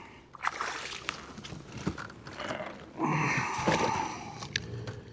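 Water splashing as a hooked bass is fought beside a kayak, loudest for about a second starting three seconds in, with scattered light clicks and knocks.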